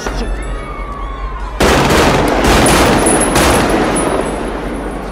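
Bursts of fully automatic rifle fire. The shots are loudest and densest from about a second and a half in to just under four seconds, then trail off into reverberation.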